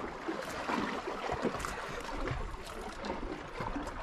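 Sea water washing and sloshing against shoreline rocks, a steady hiss with a few faint clicks.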